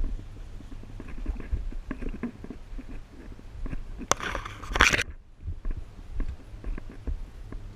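Muffled knocks, scuffs and rustling from a moving player's action camera and gear, with one loud brushing rasp about four seconds in that lasts under a second and cuts off suddenly.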